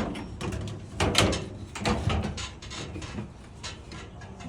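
Knocks, clunks and scraping of clothes dryer parts being handled and fitted together during reassembly, the loudest knock about a second in.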